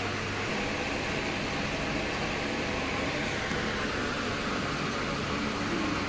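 Steady rushing noise of fans running in a large hall. A low hum cuts out about half a second in.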